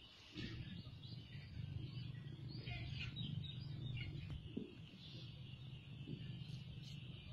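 Birds chirping against a steady high-pitched hiss, with a low steady rumble that comes in just after the start.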